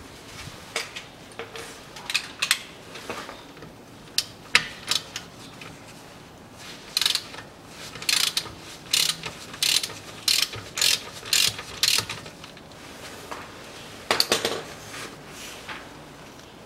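Hand ratchet clicking as it loosens the square-drive drain plug on a rear differential, in short runs of strokes, with a steady run of about two clicks a second through the middle.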